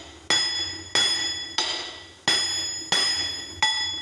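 Steel hammer blows driving a screwdriver into the joint between an Ashok Leyland truck's crown wheel and differential case to work the crown wheel loose. Six strikes about two-thirds of a second apart, each followed by a metallic ring that fades before the next.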